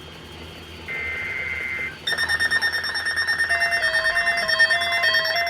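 Weather radio sending one second-long EAS digital data burst, a harsh two-tone warble, then from about two seconds in an electronic alert alarm that pulses rapidly with several tones stepping up and down. The alarm is the loudest part.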